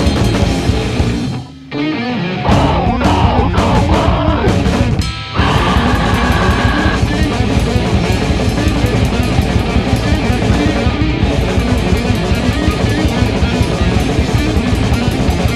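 Metal band recording: distorted electric guitars with drums playing a riff. The sound drops out briefly about a second and a half in, pauses again for a moment around five seconds, and then the full band comes back in.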